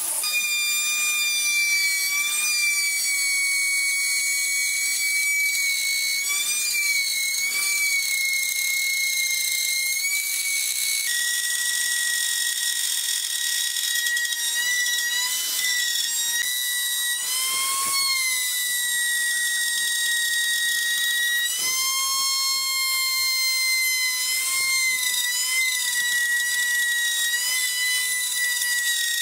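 High, steady whine of handheld electric power tools working wood. For the first eleven seconds or so it is a disc sander on the table top. Then, after a sudden change to a slightly lower pitch, it is an electric plunge router.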